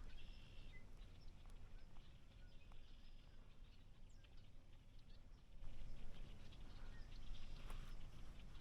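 Quiet woodland ambience: a low wind rumble with faint bird chirps and light rustling and crackling. The crackling gets louder about two-thirds of the way in.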